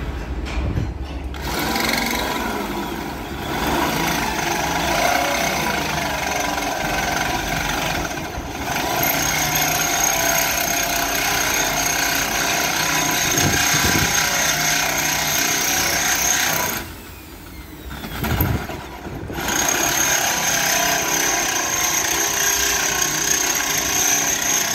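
Corded electric hand drill boring into painted steel, the motor running under load with a steady high whine. It eases off briefly twice and stops for about two seconds two-thirds of the way through, with one knock in the pause, then runs on.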